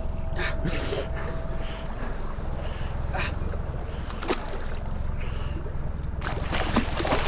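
Steady low rumble of wind and water against a small boat's hull, with soft short washes of water. Near the end the water splashes and churns more loudly as a hooked fish thrashes at the surface beside the boat.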